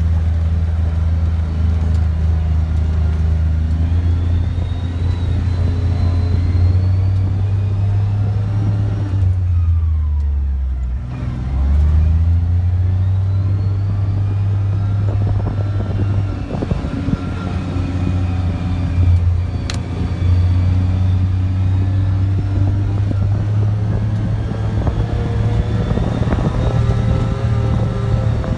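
Kawasaki Mule Pro FXT utility side-by-side driving off-road, its engine running steadily under load. About ten seconds in the engine note drops briefly and then climbs back. Later there are scattered knocks and rattles from the rough ground.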